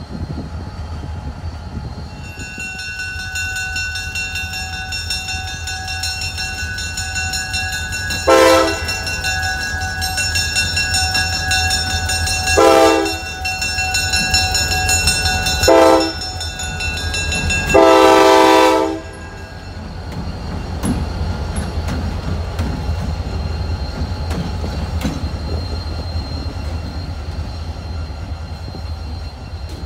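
Wheeling & Lake Erie diesel freight locomotives passing with engines running, sounding the air horn in four blasts, the last the longest, as for a grade crossing.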